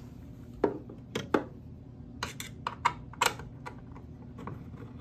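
An Allen wrench clicking and clinking against the metal screws and mounting of a floor scrubber's vacuum motor as the screws are worked loose. It is a run of irregular, sharp metallic clicks over a steady low hum.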